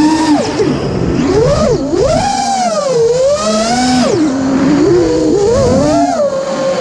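Brushless motors and propellers of a 5-inch freestyle FPV quadcopter, recorded on board: a loud whine that repeatedly swoops up and drops back down as the throttle is punched and cut through flips and dives.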